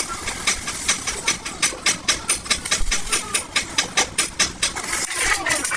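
Rapid metal-on-metal hammering in a body shop, about five sharp strikes a second, over a steady hiss of workshop noise.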